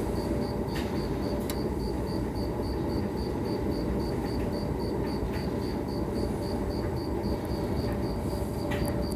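Clothes dryer exhaust blowing steadily out of an outside wall vent: a constant rush of air with a low hum. A faint high chirp repeats about three or four times a second over it.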